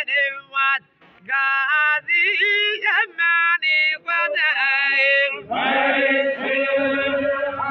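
Balochi chogan group singing: a lead male voice sings short, held melodic phrases, with a brief pause about a second in. About five and a half seconds in, a chorus of men's voices comes in together in a loud unison chant.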